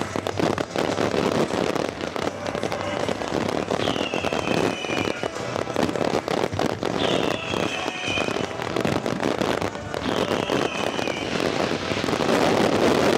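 A dense barrage of consumer-grade 1.4G fireworks: continuous crackling and popping from comets, mines and shell bursts firing together. Three times, about three seconds apart, a falling whistle-like tone sounds over the crackle.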